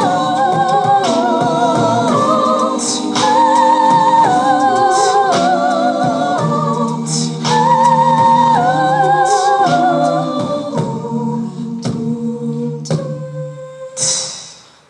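A cappella group singing held chords, the upper voices wavering with vibrato over a sung bass line, with sharp vocal-percussion hits every couple of seconds. Near the end the chord thins out, and a short breathy hiss fades away.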